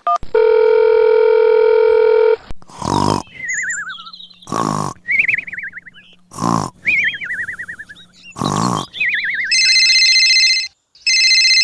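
A string of edited-in comic sound effects: a held buzzer-like tone for about two seconds, then four short loud bursts with wavering, falling whistles between them, then a pulsing electronic ring like a telephone near the end.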